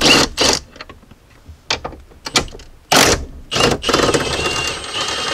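Cordless impact wrench spinning off 13 mm nuts: a few short bursts, then a longer run with a motor whine from about four seconds in.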